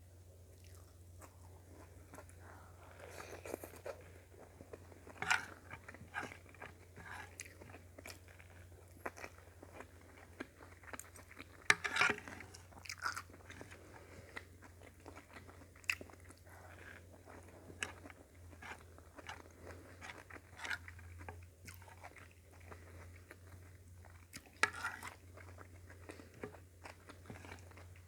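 A person chewing and biting food up close to the microphone, with irregular crunches and mouth clicks and a few sharper bites. The food is a meal of sautéed cabbage, potatoes and carrots with sardines and rice, and there is a faint steady low hum underneath.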